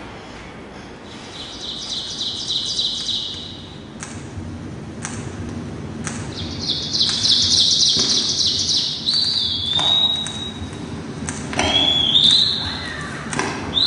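Birdlike chirping: two stretches of fast, high trills, then high whistled calls that slide down in pitch, with a few sharp clicks between them.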